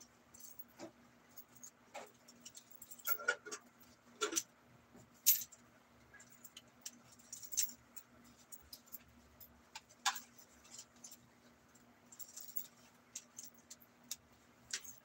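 Small light clicks and rustles from hands handling a small cloth item close by, scattered and irregular, with the sharpest click about five seconds in, over a faint steady hum.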